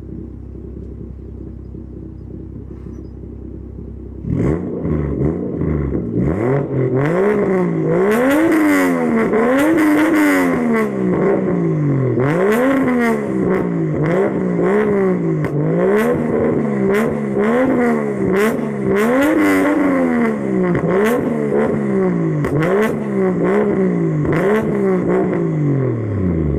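Toyota JZX100 Chaser Tourer V's 1JZ-GTE turbocharged straight-six, with a Samurai Power aftermarket muffler and Be Free catalytic converter. It idles, then about four seconds in is blipped repeatedly, roughly one rev a second, each rising and falling back, until it drops back near the end.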